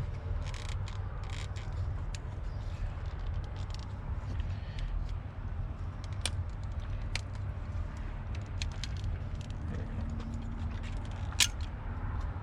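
Small plastic clicks and rattles from handling and prying apart a steering-wheel switch assembly, one sharper click near the end, over a steady low rumble of wind on the microphone.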